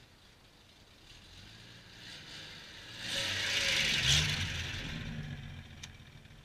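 1975 Triumph TR6's 2.5-litre straight-six passing directly over the microphone. Engine and tyre noise build up, are loudest about three to four seconds in as the engine note rises, then fade away.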